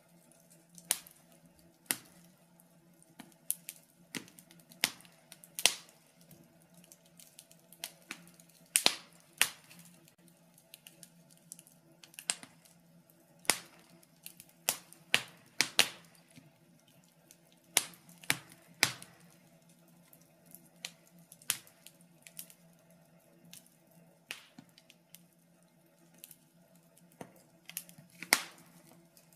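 Wood fire in a fireplace crackling, with irregular sharp pops and snaps, a few loud ones among many small ones, over a faint steady low hum.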